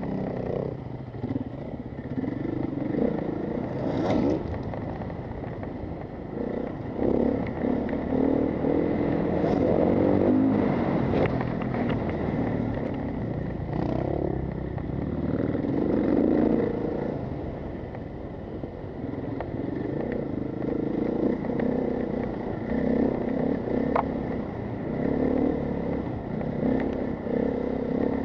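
Helmet-camera audio of a mountain bike descending fast on a dirt and gravel trail: wind rushing over the microphone that swells and fades, with tyres crunching on gravel and the bike clattering over rocks and roots.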